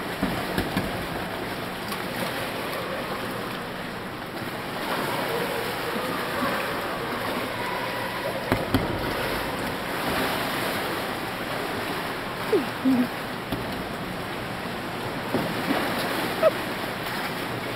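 Pool water splashing and sloshing around kayaks in an indoor pool, a steady wash of water noise with a few sharp slaps, the loudest of them near the end, and faint distant voices.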